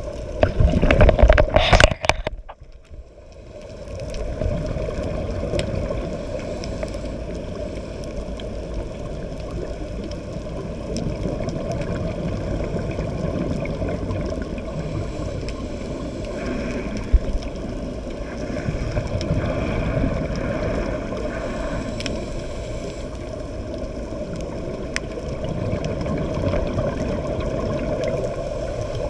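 Muffled underwater rumble picked up by a camera in its waterproof housing, with a loud rush of diver's exhaled bubbles in the first couple of seconds.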